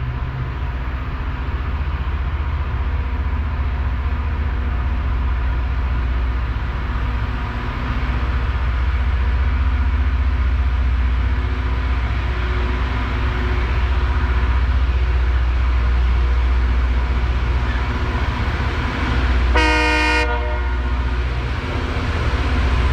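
Loram rail grinder running along the track while grinding the rail: a steady heavy rumble with a harsh grinding hiss over it. A short horn blast sounds near the end.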